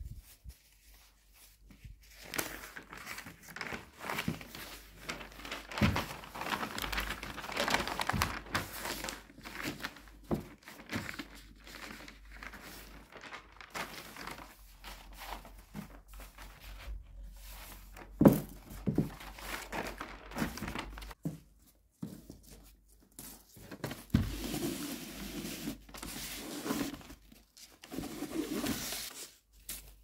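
Brown wrapping paper being unrolled and handled over a cardboard box, crinkling and rustling in long stretches. A few sharp knocks of the roll or box on the table, the loudest a little past halfway.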